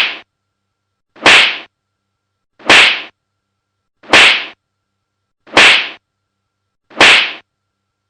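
A funny slap sound effect repeated at an even pace: a sharp, identical smack about every second and a half, six times over, with silence between.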